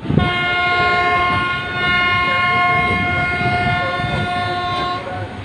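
Railway locomotive air horn sounding one long steady blast of nearly five seconds, dipping briefly about one and a half seconds in. Beneath it runs the rumble of the train's coaches rolling over the track.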